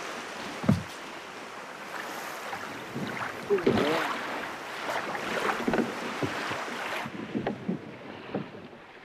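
Wind and sea noise around a wooden fishing boat, with a few brief pitched sounds bending up and down over it.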